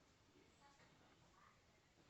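Near silence: faint room tone with a few very faint, short, indistinct sounds.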